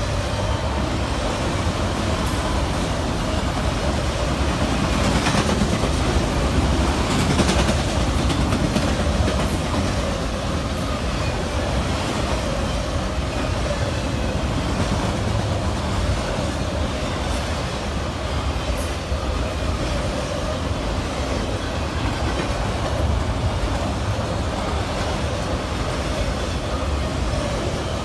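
Freight train of auto rack cars rolling past at close range: a steady rumble of steel wheels on rail with scattered clicks and clacks from the wheels, a little louder about five to nine seconds in.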